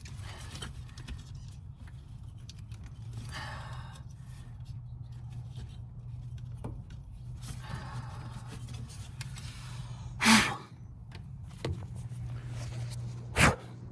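Hands working a steering-column wiring loom and its plastic retainer clips under a truck dash: faint rustling and handling noises, with two short sharp clacks, one about ten seconds in and one near the end, over a steady low hum.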